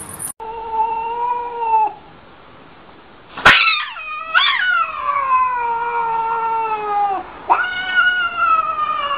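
Domestic cat in an arched-back defensive stance yowling: three long, drawn-out cries that slide down in pitch. The loudest starts about three and a half seconds in with a sharp click and swells again a second later.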